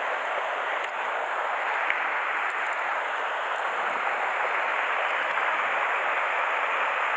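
Steady rush of stream water running high and pouring over a weir between pond sections.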